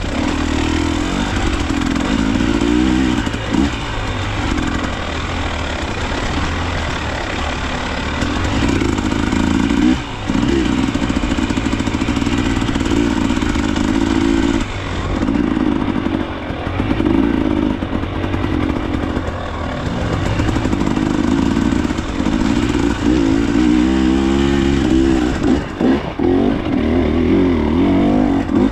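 Dirt bike engine running under load, revving up and falling back again and again, with the throttle briefly chopped several times.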